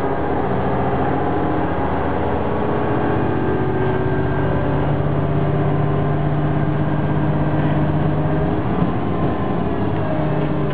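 Class 628.2 diesel multiple unit's diesel engine running under way, heard from inside the passenger compartment as a steady drone with the rumble of the moving train; its pitch shifts about eight and a half seconds in.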